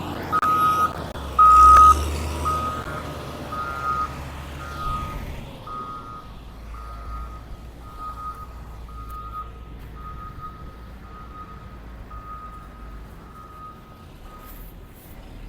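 Reversing alarm on a road construction machine beeping about twice a second, growing fainter and stopping near the end, over the low rumble of the machine's engine.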